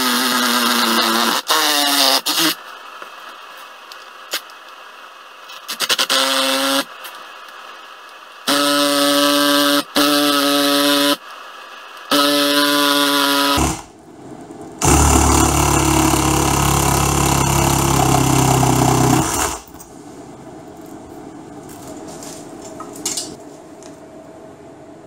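Cordless reciprocating saw cutting into the rubber of a studded winter tyre, run in four short bursts with pauses between. About two-thirds of the way through comes a louder, deeper machine sound lasting about five seconds.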